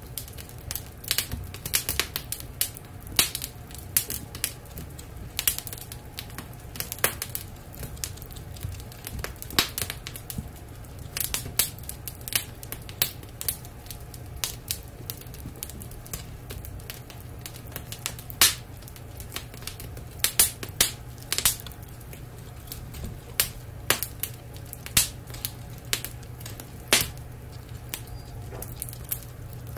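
Wood fire crackling in a fireplace, with irregular sharp pops, some much louder than the rest, over a steady low hum.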